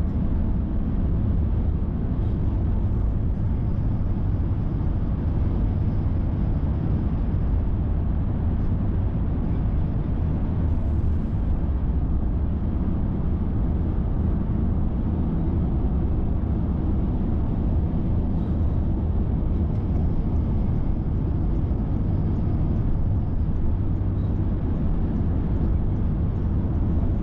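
Steady low rumble of a car cruising at motorway speed, heard from inside the cabin: tyre and engine noise with no change in pace.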